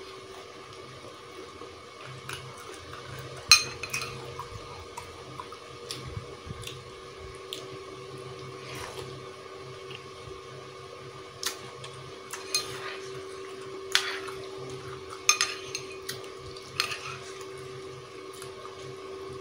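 A metal spoon clinks and scrapes against a soup bowl every second or two as someone eats soup, over a steady hum.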